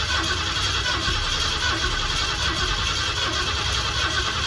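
A Ford F-150 engine in a 1979 Ford Bronco being spun over by its starter motor, cranking steadily without catching. It fails to fire, and the owner later finds there is no spark.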